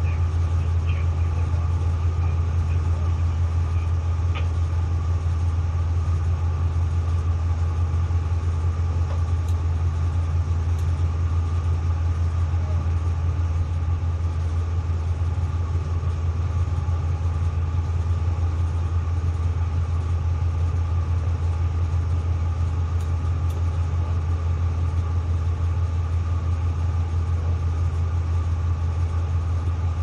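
A tugboat's diesel engines run steadily under way, heard inside the wheelhouse as a deep, even drone with a fainter steady higher hum above it.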